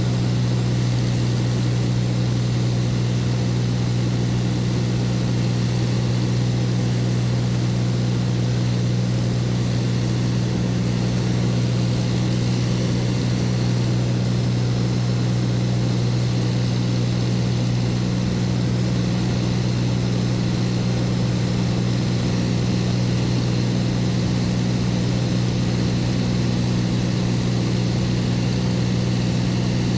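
Steady drone of a light aircraft's propeller engine in flight, heard from inside the cabin.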